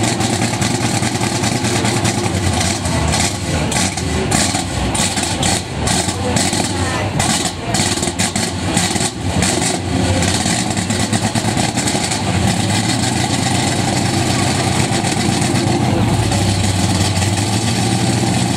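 1966/67 Dodge Charger's V8 engine running through its exhaust, blipped hard and unevenly several times in the first half, then settling back to a steady idle.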